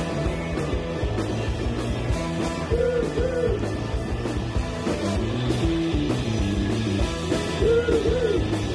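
Live rock band playing, electric guitar to the fore over bass and drums.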